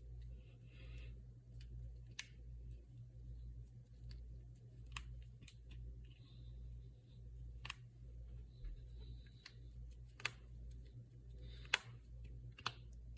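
Finger knuckles cracking: about six sharp single pops a few seconds apart, the loudest near the end, over a low steady hum.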